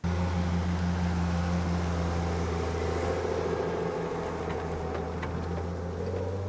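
An engine running steadily with a low, even hum. A higher tone swells and fades away again through the middle.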